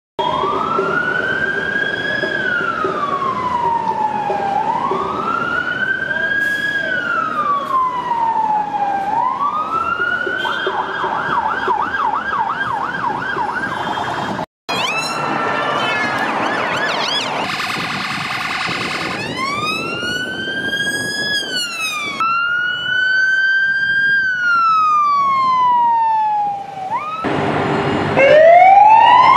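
UK emergency-vehicle sirens, police vans and cars among them, heard in several short clips. A slow rising-and-falling wail switches to a fast yelp. After a sudden cut come rapid warbles and more wails, and near the end a new, louder wail rises.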